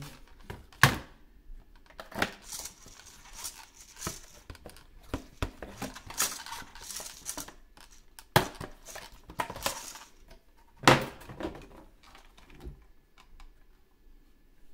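A plastic toy RC crawler car and its cardboard and plastic packaging being handled: rustling of packaging between scattered sharp clicks and knocks of hard plastic. The three loudest knocks come about a second in, at about eight and a half seconds and at about eleven seconds.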